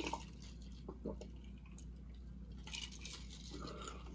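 Quiet swallows from a drink in a plastic cup, then a few faint, short clicks and knocks as the cup is handled.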